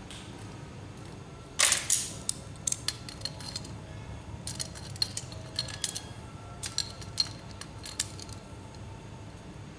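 Small metal fittings clinking and clicking as they are handled and fitted: one sharp clack about a second and a half in, then a run of light metallic ticks and taps.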